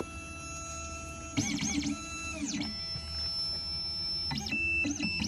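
Xhorse Dolphin XP-005 key machine decoding a clamped house key. Its stepper motors whine as the clamp carriage and decoder probe move: steady tones broken by pitch sweeps that rise and fall, once about a second and a half in and again near the end.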